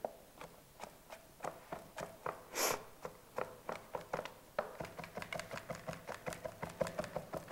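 Chef's knife mincing garlic on a wooden cutting board: scattered knocks of the blade on the board at first, then a steady quick chopping of about four strokes a second from about halfway through. A short hiss comes about two and a half seconds in.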